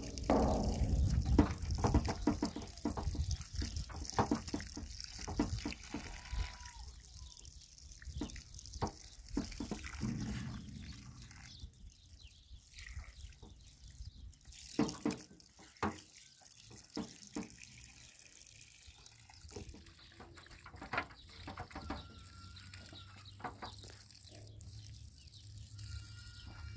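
Water running from the tap of a steel water tank onto cloth being rinsed, with scattered splashes and wet knocks. The flow is louder for the first ten seconds or so, then quieter.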